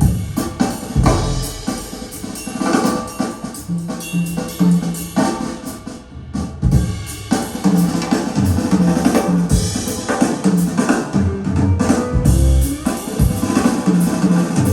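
Recorded music with a full drum kit (kick, snare, rimshots) and a strong bass line, played back through KEF LS50 Meta bookshelf speakers with subwoofers and heard in the room.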